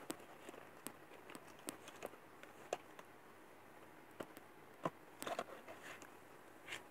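Faint clicks and taps of pencil boxes being handled, opened and set down, scattered through, with a short cluster of clicks a little past five seconds in.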